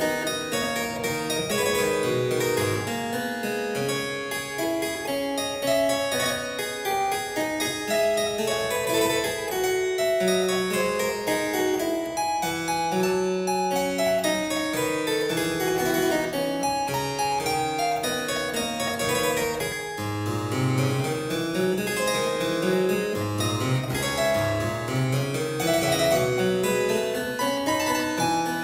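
Harpsichord music: a continuous stream of plucked notes in lines moving up and down.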